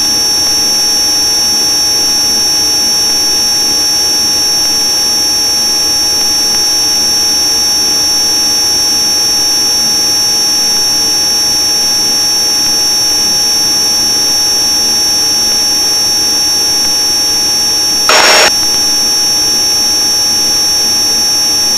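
Pilatus PC-12's Pratt & Whitney PT6A turboprop engine and propeller running steadily, heard inside the cockpit as an even drone with a high whine. About 18 seconds in, a brief burst of noise lasting about half a second.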